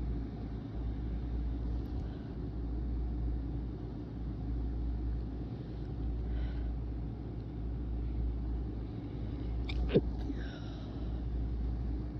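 One short, sharp stifled sneeze about ten seconds in, over a steady low rumble.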